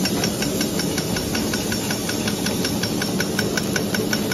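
The cutter of a plastic straw making machine clicks rapidly and evenly, about six or seven strokes a second, as it chops the extruded straw into lengths. Under it the production line runs with a steady hum.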